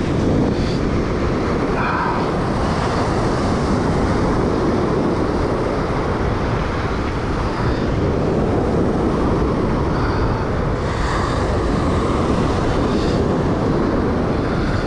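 Steady wind noise buffeting the microphone, mixed with the wash of surf breaking on the beach.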